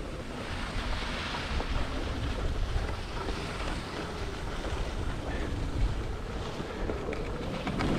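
Skis sliding and scraping over packed snow, a steady hiss that picks up about a second in, with low wind rumble buffeting the microphone.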